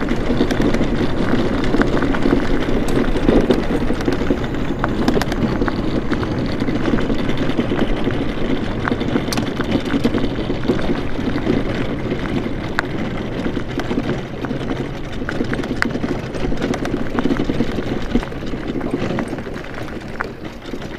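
A moving scooter's tyres rolling over rough asphalt, with wind rushing on the microphone and many small rattles and clicks from the bumpy surface.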